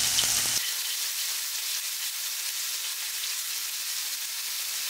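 Thinly sliced pork belly sizzling on a grill pan over a portable butane stove: a steady frying hiss. A low hum underneath cuts off about half a second in.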